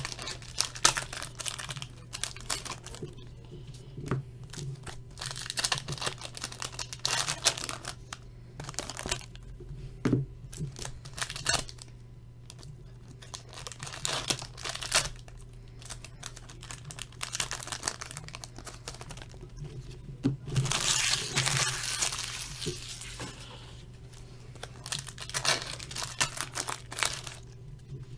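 Hockey card packaging crinkling and being torn open by hand, in irregular bursts of rustling, with a longer rustle about twenty seconds in. A steady low hum runs underneath.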